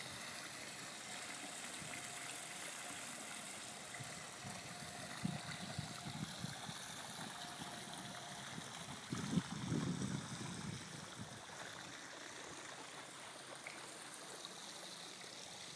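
Water spilling from a raised spa over its stone spillway and splashing steadily into a swimming pool. Irregular low rumbles on the microphone around the middle.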